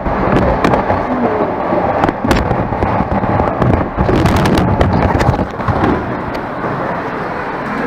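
Handling noise on the camera's microphone: a loud, dense crackling rustle with many sharp clicks and knocks as the covered camera is carried by hand.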